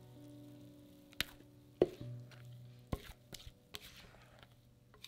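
Scattered light taps and knocks from a glass mixing bowl as chocolate cake batter is poured onto a parchment-lined metal baking tray; the loudest is a clink with a short ring about two seconds in. A steady low hum runs underneath.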